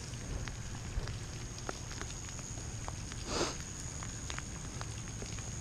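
Footsteps swishing through wet grass, with scattered light ticks over a steady hiss and a faint high-pitched tone; one louder rustle about three and a half seconds in.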